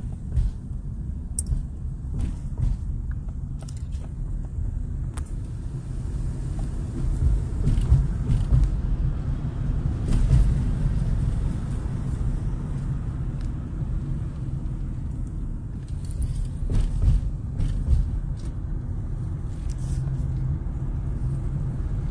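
Car cabin noise while driving: a steady low engine and road rumble, with scattered light clicks and rattles.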